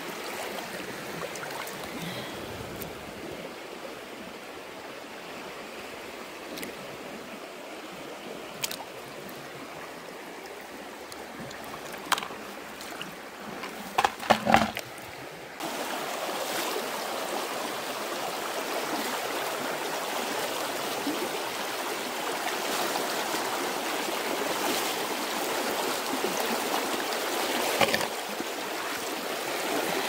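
Shallow rocky stream rippling and rushing. The rush jumps suddenly louder about halfway through, just after a few sharp knocks.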